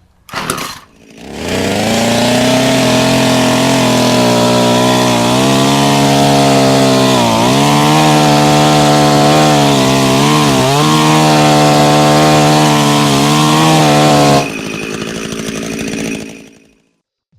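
Two-stroke chainsaw running at high revs while carving wood, its pitch sagging briefly twice as the chain bites into the wood. The engine note cuts off a few seconds before the end, leaving a quieter rushing sound that fades out. Two short sounds come just before it starts.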